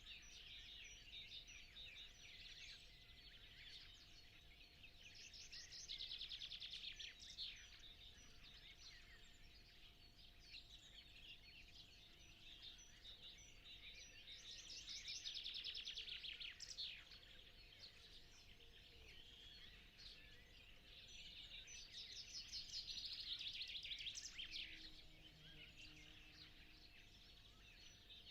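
Faint dawn chorus of several songbirds chirping and singing. One bird sings a fast, dense trill three times, about eight seconds apart. A faint steady hum sits underneath.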